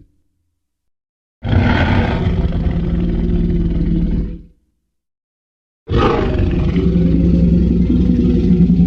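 Jurassic Park Tyrannosaurus rex sound-effect roar, about three seconds long, fading out. After a second and a half of silence a second T. rex call starts near the end and runs on.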